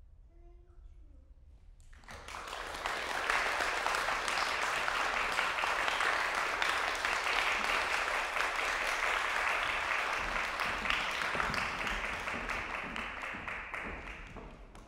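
Audience applauding, starting about two seconds in after a short quiet, holding steady, then tapering off near the end.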